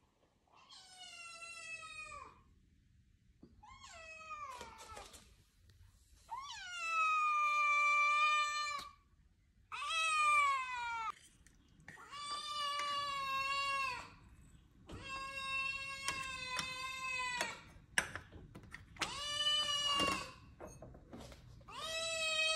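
Siamese-mix kitten meowing over and over: about eight long, drawn-out meows with short gaps between them, each dropping in pitch at its start and then held steady.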